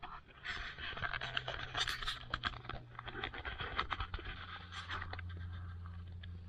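Tabby cat playing close up on a carpet: a quick, irregular run of scratching and clicking that is thickest in the first few seconds and thins out near the end.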